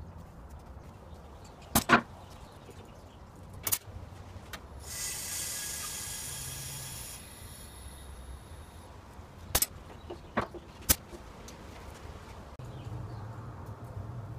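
Metal clicks and knocks from closing up and connecting a resin-casting pressure pot, the sharpest pair about two seconds in. About two and a half seconds of compressed-air hiss follow as air is let into the pot to pressurise it to about 50–59 psi, then a few more sharp clicks.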